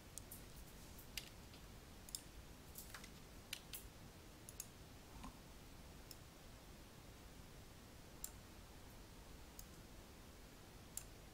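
Faint, sharp clicks of a computer mouse button, scattered irregularly, over a low steady hiss.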